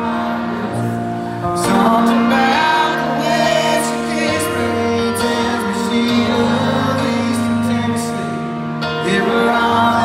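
Live amplified music: a man singing while playing an upright piano.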